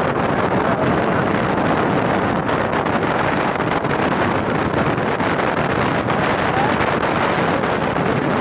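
Steady wind rush buffeting the microphone of a vehicle moving along a road, an even, unbroken roar with no distinct engine note.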